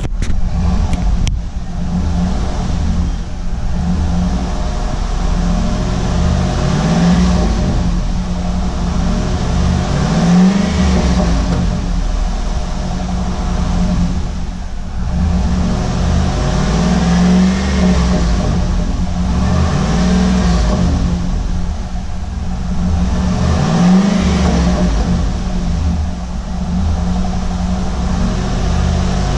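The 5.3-litre V8 of a 2004 Chevrolet SSR running, heard from behind its dual exhaust. It is revved up several times from idle, with a rising swell every few seconds.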